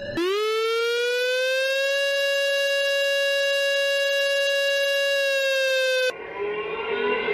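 Alarm siren sounding as an emergency warning: one rich tone that winds up in pitch over about two seconds, holds steady, and cuts off suddenly about six seconds in. Music with a guitar follows near the end.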